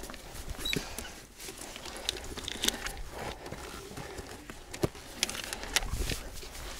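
Footsteps on a rocky mountain trail: a hiker's boots scraping and clicking irregularly on rock.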